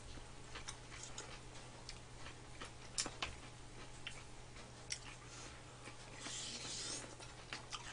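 Close-up eating sounds: chewing rice cake soup, with scattered light clicks of chopsticks and a metal spoon. A longer breathy sound comes a little after six seconds in, as a spoonful goes to the mouth. A steady low hum sits underneath.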